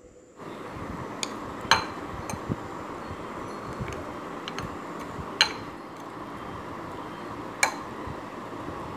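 Spoon clinking against a bowl while stirring raita: three sharp clinks and several fainter taps, over a steady background noise that begins about half a second in.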